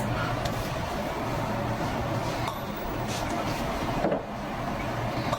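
A person snoring over a steady low hum.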